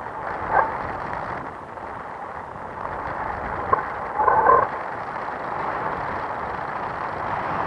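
Steady wind rushing over the camera microphone in flight, with a brief higher-pitched sound about four seconds in.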